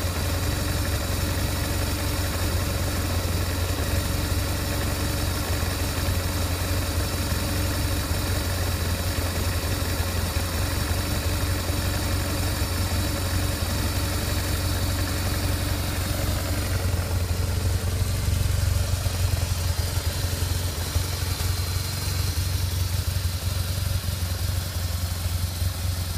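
BMW R1200GS Adventure's boxer twin engine idling steadily in neutral.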